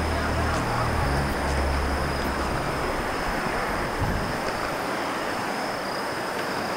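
Outdoor waterside ambience: a low, steady rumble that fades out about halfway through, under a continuous high-pitched trill of insects.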